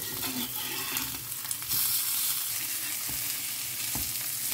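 Rava-coated sole fillets sizzling as they shallow-fry in oil in a cast iron pan, getting louder about two seconds in. A metal spatula scrapes and taps against the pan as a fillet is turned over.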